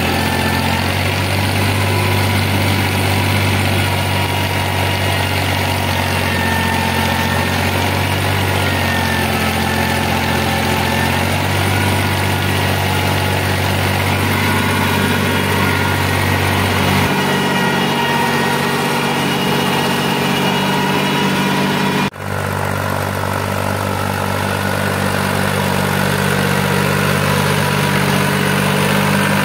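New Holland 3600-2 tractor's three-cylinder diesel engine running steadily while working a rotavator in a tilled field. The engine note shifts about 17 seconds in and breaks off briefly about 22 seconds in before running on.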